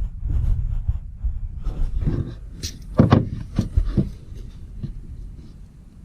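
Irregular knocks, bumps and low rumbling from handling things during work, the sharpest knocks a few seconds in, then fading away near the end.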